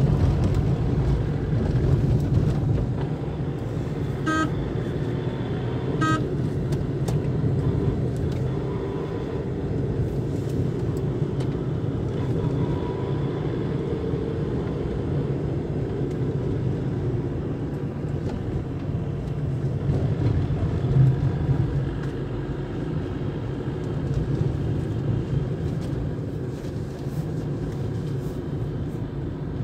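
Steady engine and road noise heard from inside a moving car, with two short horn beeps about two seconds apart a few seconds in.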